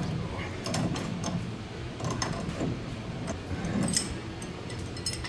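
Scattered light metallic clicks and clinks of hand work on a car's front tie rod and its threaded adjusting sleeve, a few separate ticks a second or so apart, over a low steady hum.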